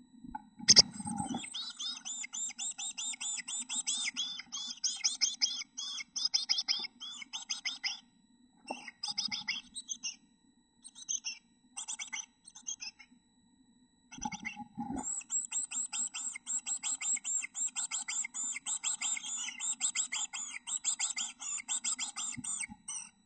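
Black-capped chickadee nestlings begging: a fast, continuous stream of high chirps that thins out to scattered calls around the middle and then picks up again. A knock about a second in and another about midway come just before each burst, as a parent arrives at the nest box with food.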